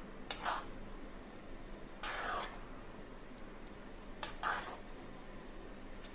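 Metal spatula scraping against a metal pan while stirring thick, oily green-chilli pickle: a few short strokes, with a longer scrape about two seconds in.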